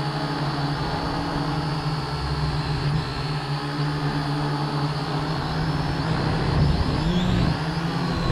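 A small drone's electric motors and propellers buzzing steadily in flight, heard from a camera mounted on the drone itself, with a high whine over a low hum; the pitch wavers near the end.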